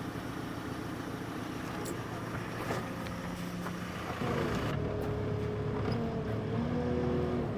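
Engine of the machine lifting the jet, running steadily; about four seconds in it gets louder and a whine joins, its pitch shifting in steps.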